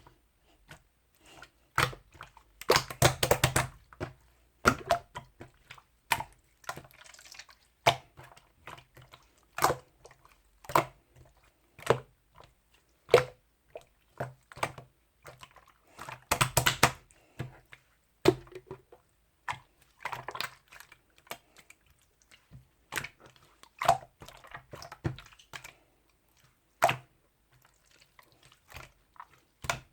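Irregular sharp taps and clicks, with two denser clattering flurries about three seconds in and again about sixteen seconds in.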